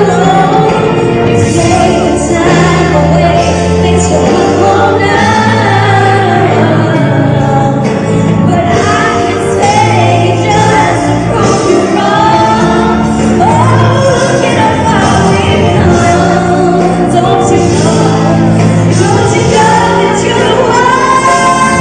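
Female pop singer singing live over full band accompaniment, with sustained held notes above a steady bass line.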